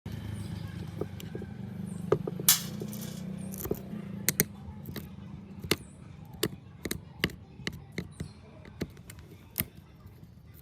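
A string of sharp clicks and knocks, the kind small hard parts make when handled and set down, with a brief scraping rasp about two and a half seconds in. A low hum under them fades away after about four seconds.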